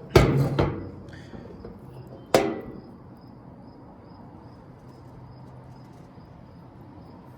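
Sharp knocks of hard objects: a doubled knock near the start and a single one about two seconds in, each ringing briefly. Crickets chirp faintly and steadily underneath.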